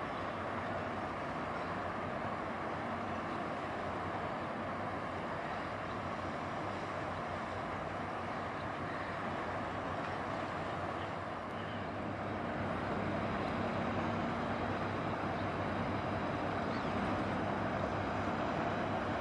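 Steady engine rumble and hum of a passing general cargo ship's diesel. A steady low tone joins in about twelve seconds in, and the sound grows a little louder.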